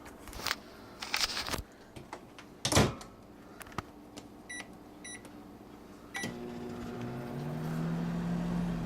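Microwave oven being set going: a few clicks and a loud thump, two short keypad beeps, then a click as the oven switches on and starts to hum steadily, its low tone rising a little as it gets up to speed.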